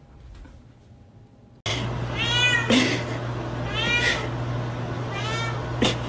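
Domestic cat meowing three times, each meow rising and then falling in pitch, starting a little under two seconds in over a low steady hum. A sharp click comes near the end.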